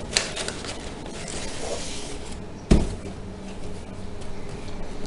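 Crumpled packing paper rustling and cardboard being handled while a boxed camcorder is pulled out of a shipping carton. There is one sharp thump about two and a half seconds in.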